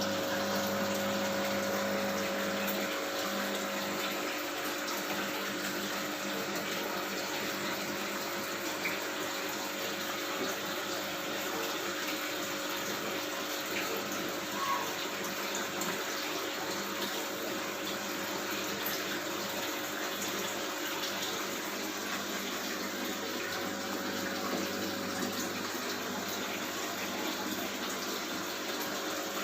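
Aquarium water pump running steadily, with water splashing and trickling from the filter return and a steady electrical hum.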